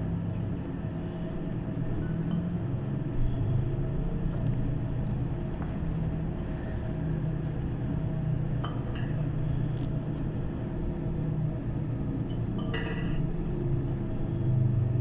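Steady low vehicle drone heard from inside, with scattered light clinks and rattles.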